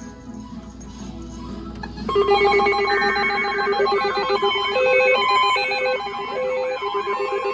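A synthesized, ringtone-like melody of electronic beeping tones over a steady held tone, starting loudly about two seconds in, with some warbling notes; before it there is only a faint hum.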